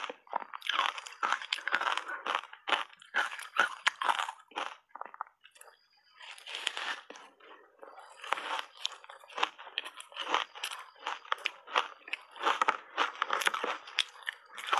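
A mouthful of matcha-powder-coated reshaped ice being chewed and crunched: dense crackling bites, with a short lull about five seconds in before the crunching resumes.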